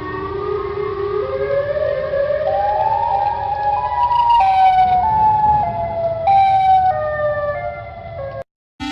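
Emergency alert siren whose pitch climbs in small steps, then jumps up and down between steps, over a low rumble; it cuts off suddenly near the end.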